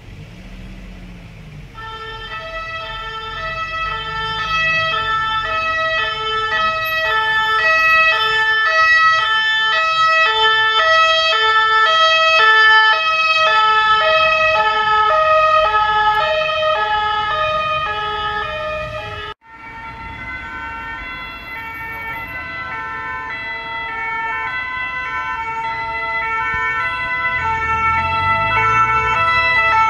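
French two-tone emergency siren on a passing ambulance, alternating between two notes, swelling louder and then fading before breaking off suddenly. A second two-tone emergency siren then starts and grows steadily louder as another vehicle approaches, with engine rumble rising near the end.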